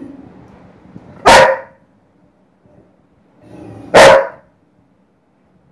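Doberman barking: two loud single barks, the first about a second in and the second about three seconds later.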